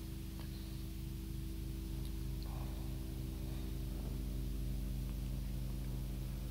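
A steady low electrical hum, with a few faint clicks.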